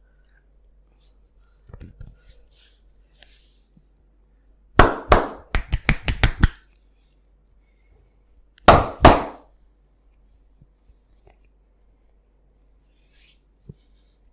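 Massage strokes of the hands on the body: a quick run of about eight sharp slaps over a second and a half, then after a pause two more in quick succession. Faint rubbing and rustling comes before them.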